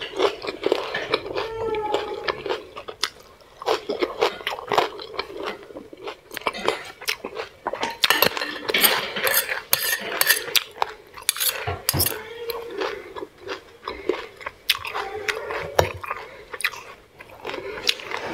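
Close-miked metal fork and spoon clinking and scraping against a plate as rice is scooped up, with chewing near the start.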